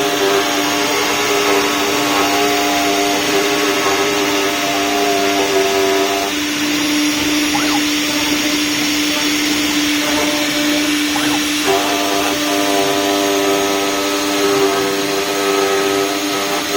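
CNC router running with a steady whine over a hiss. Its upper tones drop away about six seconds in and return about twelve seconds in.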